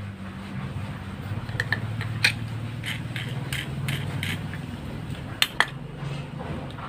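Light metal clicks and clinks as a bent metal wire bracket and bolts are handled and fitted on a small wooden roller block of a homemade slingshot fish gun, about a dozen scattered between one and a half and six seconds in. A steady low hum runs underneath.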